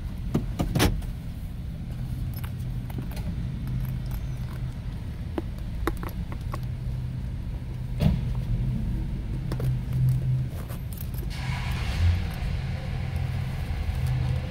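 Steady low vehicle hum heard from inside a car in a parking garage, with occasional clicks and knocks from handling inside the cabin. A hiss joins about eleven seconds in.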